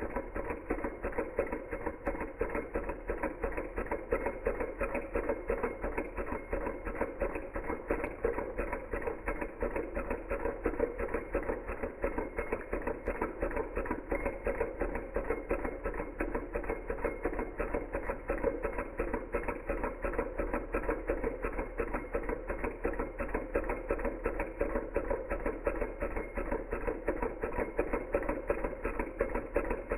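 Small Hog Motor Stirling engine running steadily, its piston, linkage and flywheel making a rapid, even mechanical clatter.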